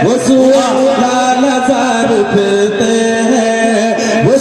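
A man singing a naat into a microphone, holding long, wavering melodic notes that glide between pitches.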